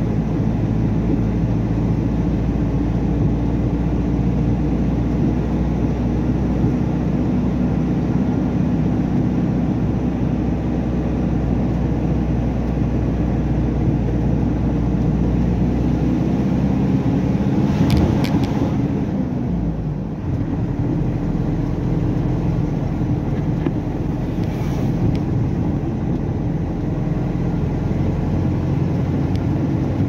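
Truck engine running steadily while driving. About two-thirds of the way in, an oncoming truck passes with a brief rush of noise.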